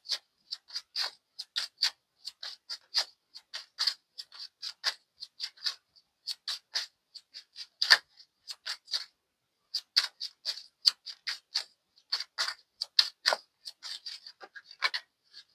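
A deck of tarot cards being shuffled by hand: a long run of short, crisp card flicks and slaps, several a second at an uneven pace.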